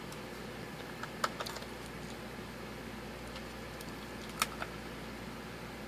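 A few light clicks and taps of a small Phillips screwdriver on the laptop hard drive's spring-held caddy screws as they are driven back in: a short cluster about a second in and two more near four and a half seconds.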